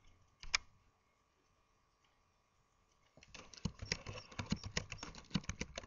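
A single computer mouse click about half a second in, then from about three seconds in a quick run of keystrokes typing on a computer keyboard.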